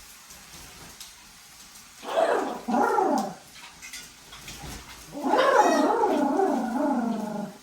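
Macaw calling: two short falling squawks about two seconds in, then a longer, louder call from about five seconds in that falls away near the end.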